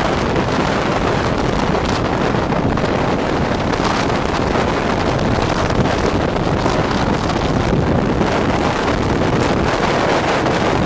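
Heavy wind buffeting the microphone over the steady rush of storm waves breaking and churning against a stone sea wall.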